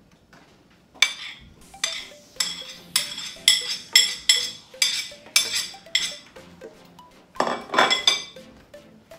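Metal knife clinking and scraping against a plate as chopped onion is pushed off it into a bowl: about a dozen sharp clinks, roughly two a second, then one longer scrape near the end.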